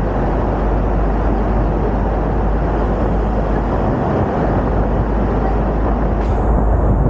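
Steady, loud roar of road traffic and rushing air in a road tunnel, heard from the open top deck of a moving double-decker bus.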